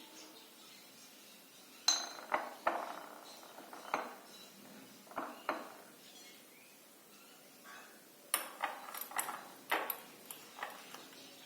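Metal kitchen utensils clinking and knocking against dishes and pans: a series of short, sharp clinks with brief ringing, more closely spaced near the end.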